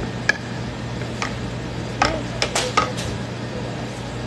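Metal kitchenware clinking: a series of short, sharp clinks, most of them bunched between two and three seconds in, over a steady low hum.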